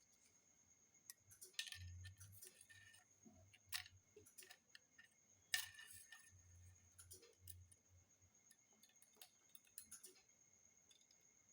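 Faint, scattered clicks and light taps of a replacement phone screen being set into the phone's frame and handled, with a few louder taps.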